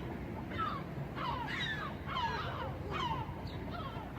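Seagulls calling: a steady run of short calls, each falling in pitch, about two a second.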